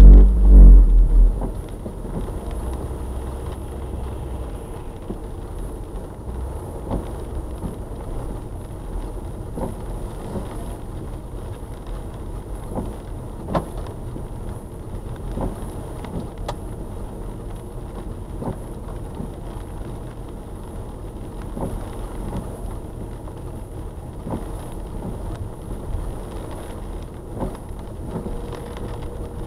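A car driving slowly on a wet road, heard from inside the cabin through a dashcam: a steady low rumble of engine and tyres with scattered faint clicks. Music fades out about a second in.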